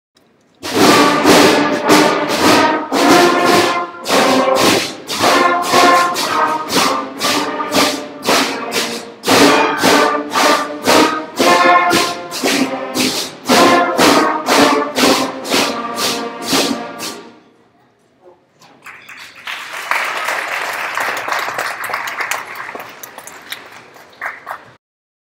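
Beginner elementary-school concert band of wind and brass instruments playing a simple tune in short, separate notes, about two a second, until it stops. About a second later the audience applauds for several seconds.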